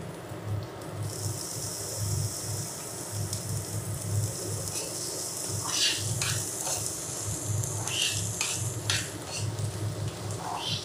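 Chopped onion and capsicum sizzling in hot oil in a frying pan, the sizzle coming in sharply about a second in. From about halfway through, a spatula scrapes and stirs them around the pan in short strokes.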